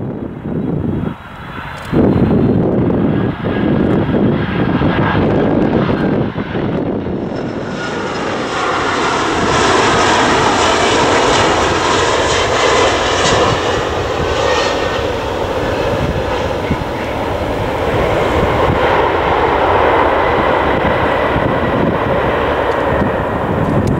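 Boeing 767-300 jet engines on landing. The engine noise builds as the jet passes close and broadens into a loud jet roar about eight seconds in, and it stays loud through the touchdown and rollout.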